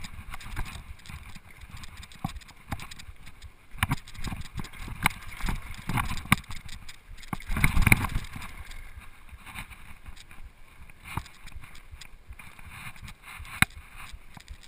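Flatline downhill mountain bike rattling down a rough dirt and rock trail: tyres rolling on the dirt with many sharp knocks and clatters from the bike. A heavy jolt about eight seconds in is the loudest moment, then the rolling goes quieter.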